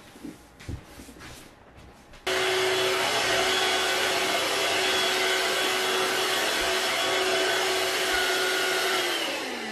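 Upright stick vacuum cleaner starting abruptly after a couple of seconds of faint knocks, then running steadily with a constant motor whine as it is pushed over a rug. Near the end it is switched off and winds down, its whine falling in pitch.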